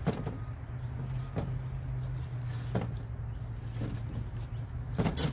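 Roll of chicken wire being unrolled across a wooden door frame: scattered rattles and taps of the wire mesh, the loudest near the end. Under it runs a steady low hum.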